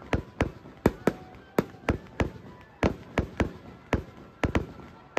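Fireworks going off in a fast, irregular string of sharp bangs, about two or three a second.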